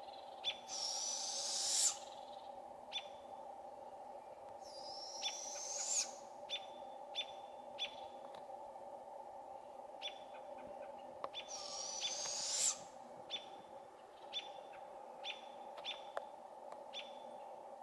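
Juvenile barred owls giving their raspy, rising hiss-screech begging call three times, each call about a second and a half long and cutting off sharply, as they call for their parents. American robins chirp repeatedly in between in short, sharp notes.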